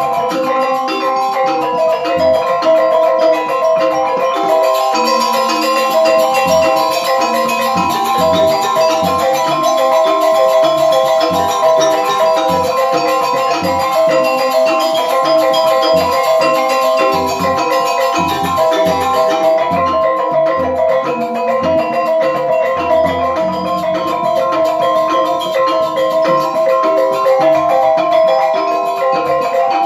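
Balinese semar pegulingan gamelan playing: bronze keyed metallophones ring in fast interlocking patterns over held bamboo suling flute tones, with kendang drum strokes beneath.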